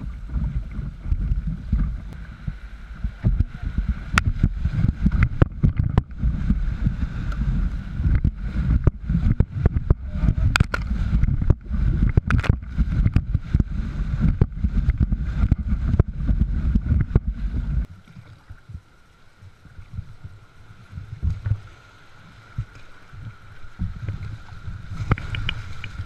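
A canoe running river rapids: rushing whitewater and a gusty rumble on the microphone, with frequent sharp knocks and splashes against the hull. About two-thirds of the way through it drops to a quieter, steadier rush of water.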